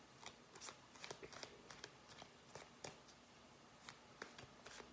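Tarot cards being handled: faint, irregular light clicks and flicks of card stock, several a second.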